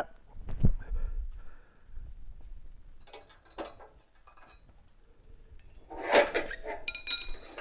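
A heavy thump about half a second in, then a few light clicks and, near the end, loud clanking and rattling with a brief metallic ring as the steel caster wheel bracket of a BendPak four-post lift is worked loose and pulled off the lift's leg.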